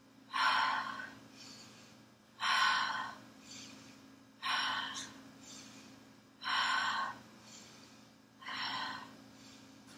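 A woman breathing audibly in a steady rhythm: five strong breaths, about one every two seconds, each followed by a fainter one. The breathing is paced to a seated yoga twist, breathing in to one side and out to the other.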